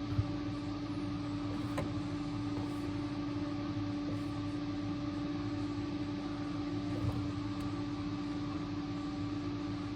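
Refrigerator running with a steady hum and one constant mid-pitched tone, with a couple of faint ticks. The back of the unit is hot, and the owner takes the fridge to be broken and overheating.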